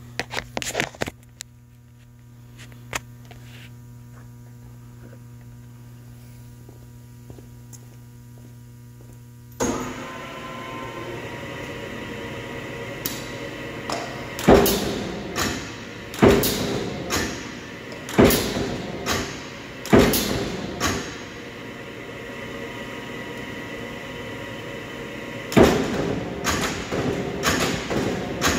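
Wysong 1010 mechanical power shear, its 10-horsepower motor running with a steady hum that grows louder and noisier about a third of the way in. From about halfway the ram cycles, giving four heavy thumps about two seconds apart, then more thumps near the end.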